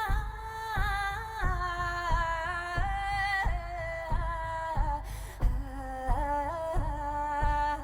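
A woman's voice sings long, wordless held notes that waver slightly and step slowly down in pitch. Under it a shamanic frame drum beats a slow, steady pulse, about three beats every two seconds.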